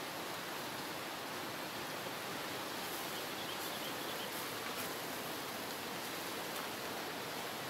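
Steady rushing of a fast-flowing river, with a few faint light clicks about halfway through.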